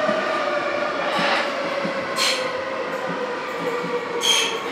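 Munich U-Bahn train braking into the station, its traction motors whining on a slowly falling pitch over the running rumble of the wheels, with three short high-pitched hisses.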